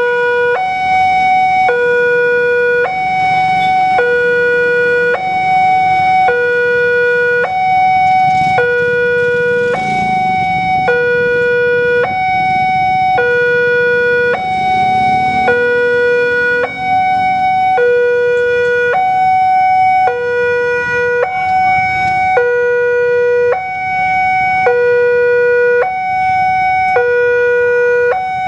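Railway level-crossing warning alarm sounding from the loudspeaker on the crossing signal: a loud electronic two-tone hi-lo tone, each note about a second long, alternating steadily. It signals that a train is approaching and the crossing is closed. Idling and passing motorcycle and car engines are faint underneath.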